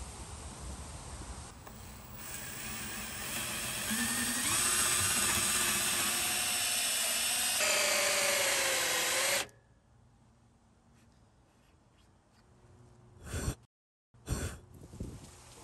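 Milwaukee M18 cordless drill driving a hole saw through wood: a rasping cut over the motor's whine, which grows louder, sags in pitch under load near the end, then stops suddenly about nine and a half seconds in. Two short knocks follow near the end.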